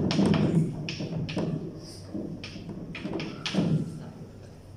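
Chalk writing on a blackboard: a run of short taps and scraping strokes as the words and symbols are written.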